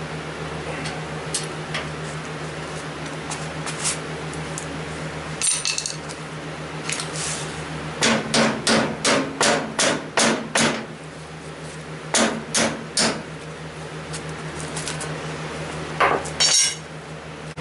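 Hammer blows struck in short runs: about seven quick strikes around the middle, three more a little later and a couple near the end, over a steady low hum.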